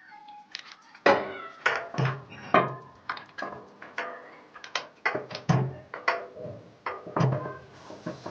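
Metal tools clinking and knocking, about two sharp clinks a second, each with a short ring. A screwdriver is working a plug spanner, threading a new spark plug into a generator engine.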